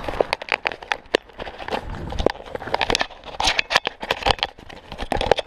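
Mountain bike clattering over a loose gravel and stone trail: the tyres crunch on the stones and the bike rattles with many rapid, irregular knocks and clicks over a low rumble.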